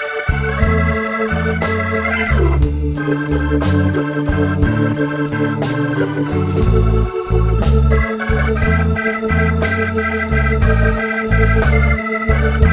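Instrumental background music with an organ playing held chords over a bass line and a steady beat.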